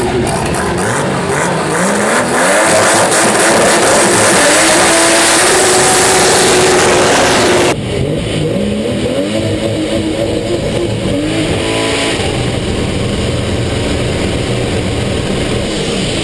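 Turbocharged six-cylinder engine of a Chevrolet Opala drag car revving: it climbs and holds high revs for a few seconds. Then, heard from inside the car, it rises in a series of short rev sweeps before the revs fall away near the end.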